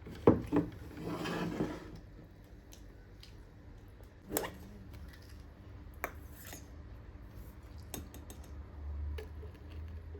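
Dishes and utensils being handled: two sharp knocks near the start, a brief rustle, then a few scattered clinks.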